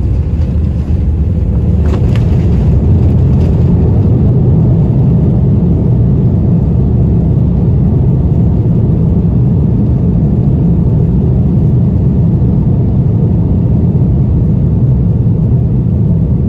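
Loud, steady low roar of a Boeing 787-9's Rolls-Royce Trent 1000 turbofan running in reverse thrust on the landing roll, with the thrust reverser open, mixed with the rumble of the landing gear on the runway, heard inside the cabin.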